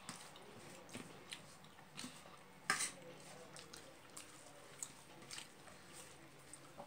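Fingers working rice on a steel plate, with chewing and lip smacks: soft scattered clicks and taps, one sharper click a little under three seconds in.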